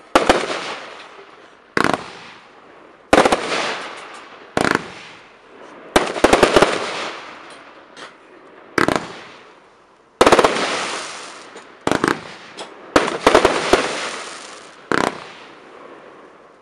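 Evolution Fireworks 'Acatenango' 140-shot compound cake firing: sharp bangs of bursting shots every second or two, some in quick clusters of several, each followed by a fading crackling tail. The shooting dies away near the end.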